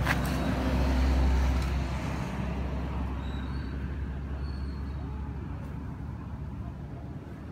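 A motor vehicle's low engine rumble passing by, swelling about a second in and then fading away, after a single click at the start.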